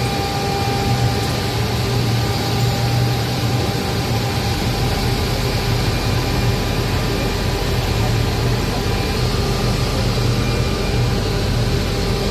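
Steady machine noise with a low hum and a few faint high whining tones, unchanging throughout.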